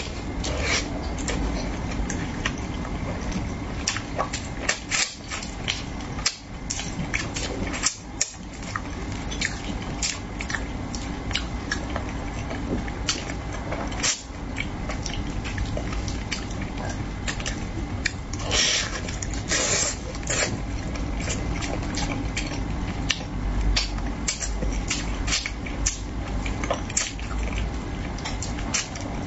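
Close-up mukbang eating of spicy braised carp: wet chewing, lip smacks and small mouth clicks, many short sounds in a row over a steady low hum, with a few louder slurps about two-thirds of the way through.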